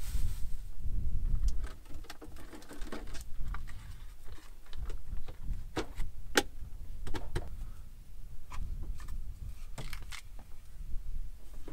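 Food being unpacked by hand: a plastic produce bag rustling and containers set down on a rubber floor mat, heard as a scatter of light knocks and clicks, the sharpest about six and a half seconds in, over a low rumble.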